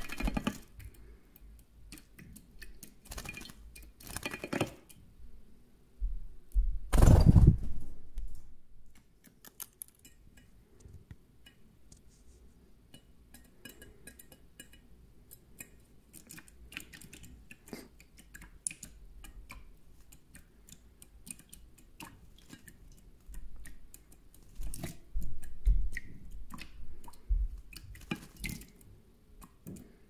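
European goldfinch bathing in a shallow metal dish of water, with bursts of splashing and wing-fluttering in the water, loudest about seven seconds in. A long lull of light scattered ticks follows, then more splashing near the end.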